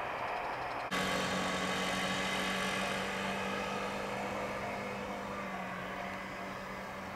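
Running noise from a passing Tobu 100 series Spacia train cuts off abruptly about a second in. It is replaced by a steady electric hum and whine over a hiss as a Tobu N100 series Spacia X electric train approaches, fading slightly.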